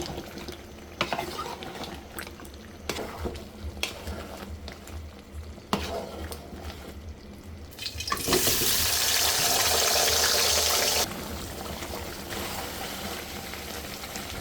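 A spatula stirring and scraping chicken in a cooking pot, with scattered clicks and clinks. About eight seconds in, a loud hiss starts and lasts about three seconds. It then drops to a quieter, steady sizzle under the stirring.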